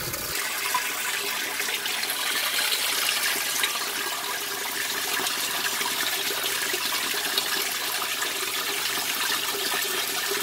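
Water pouring from the inlet of a 2017 Speed Queen top-loading washer into the tub, splashing steadily onto a load of towels as the tub fills.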